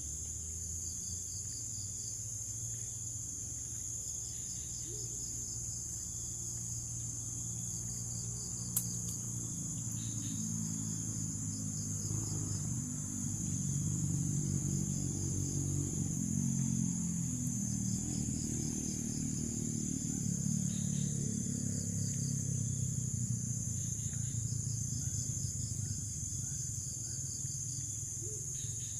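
Insects droning steadily, with crickets chirping in repeated pulsed trills. A low rumble swells in the middle and fades again, and there is a single sharp click about nine seconds in.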